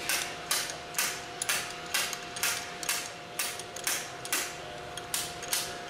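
Slide hammer being worked, its sliding weight knocking against the stop in a steady run of sharp metal knocks about twice a second, pulling the outlet valve plug out of the pump manifold.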